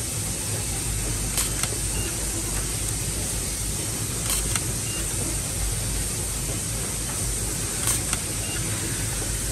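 SWIFT automatic cable tie tool cycling on PV cable bundles, giving a quick double click each time it wraps and cuts a tie, three times a few seconds apart, over a steady workshop hum.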